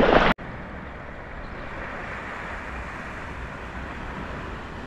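Loud wind and water noise that cuts off suddenly about a third of a second in, then a steady, even hiss of wind and sea at the shore.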